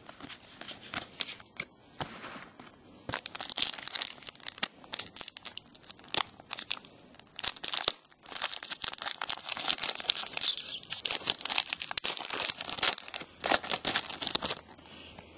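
Foil trading-card pack wrappers being torn open and crinkled, with the cards handled in between. It comes in bursts of crackly rustling, busiest from about three to five seconds in and again from about eight to thirteen seconds in.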